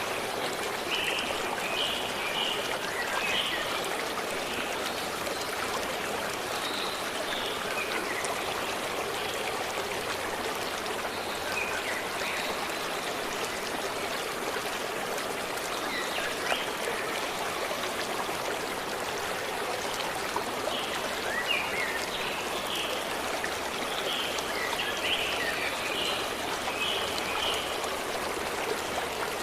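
A forest stream running steadily, with birds chirping in short bursts of quick calls in the first few seconds and again in the last third.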